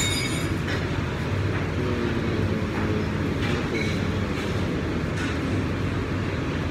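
Steady low hum and noise of a large commercial kitchen and dining hall, with faint rattling shakes of a plastic pepper shaker now and then.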